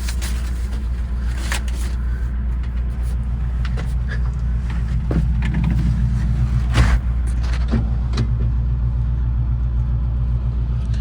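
John Deere 225D LC excavator's diesel engine idling steadily, heard from inside the cab, with a few sharp knocks and clicks from handling in the cab, the loudest about two-thirds of the way in.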